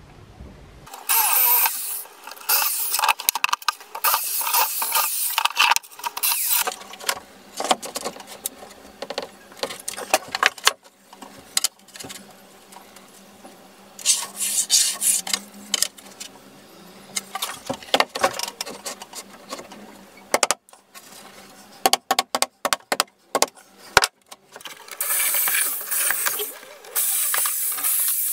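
Power drill running in several bursts, with sharp clicks and knocks in between: drilling and driving fixings to mount a rack on the wall.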